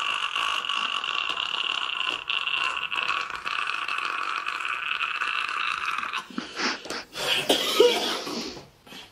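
A man's long, steady, high-pitched scream, held for about six seconds and then cut off, followed by a few seconds of ragged, breathy noises.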